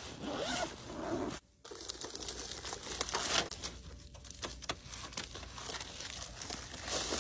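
Plastic wrapping crinkling and rustling as a flat-packed titanium tent stove in a white plastic bag is handled and lifted from its padded carry case, with a short break about a second and a half in.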